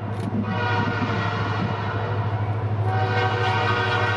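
Diesel freight locomotive sounding a long blast on its multi-note air horn at a road crossing, a warning to traffic. A steady low engine rumble runs underneath, and the horn grows louder about three seconds in as the train comes closer.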